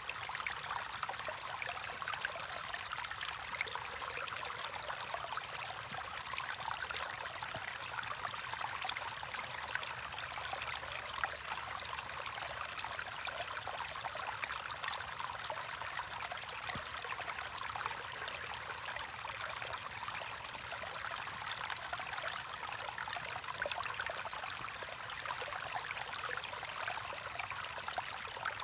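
A small stream running over rocks, a steady babbling and trickling of water.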